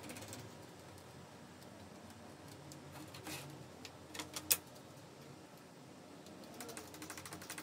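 Faint wooden clicks and light knocks as a stop block is slid along a crosscut sled's wooden fence and set in place, with one sharper click about four and a half seconds in.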